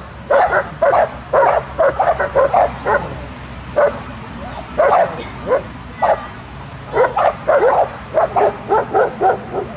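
Doberman barking over and over in quick runs of two to three barks a second, with short gaps between runs: the excited barking of a dog worked up in protection training.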